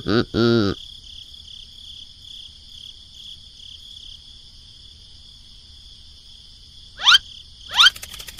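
Steady insect chorus of crickets chirring in a high, slightly pulsing band. A brief high-pitched cartoon voice fades out at the start, and two quick rising whistles sound about a second apart near the end.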